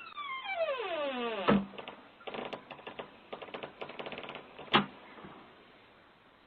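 A squeaky fart sliding down in pitch for about a second and a half and ending in a sharp pop, followed by a run of rapid clicks and one more sharp click near the end, heard through a doorbell camera's thin-sounding microphone.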